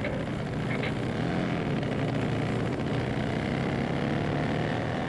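Nitro-burning 1948 Vincent 1000cc V-twin engine running hard under full throttle, heard from on board over wind rush, its pitch climbing slowly as the bike gathers speed.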